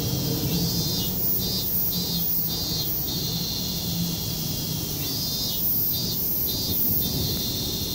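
Steady outdoor background noise: a low rumble and hiss, with a high pulsing sound that comes in two spells, about half a second in and again about five and a half seconds in.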